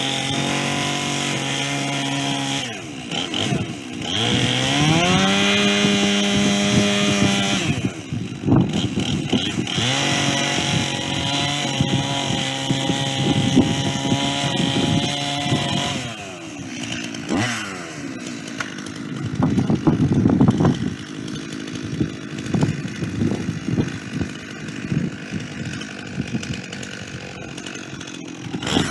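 Chainsaw on a chainsaw mill running through a white pine log, its engine pitch sagging and climbing back as it works under load. About halfway through the engine note drops to a lower, rougher running with a few knocks.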